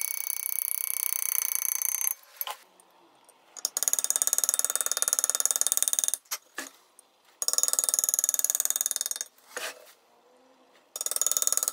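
Power-assisted engraving graver cutting brass plate, a fast even high-pitched buzz of rapid hammer strokes. It runs in four bursts of about two seconds each, with short pauses and single clicks between them as the tool is repositioned.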